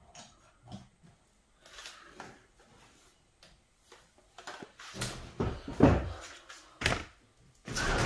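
Handling noises: a few knocks and rustles of objects being moved, sparse at first and busier in the second half, with the loudest knock about six seconds in.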